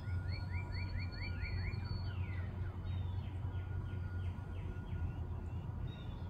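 Small birds calling: a quick series of rising chirps, about four a second, for the first two seconds, then a run of short falling notes. A steady low rumble runs beneath.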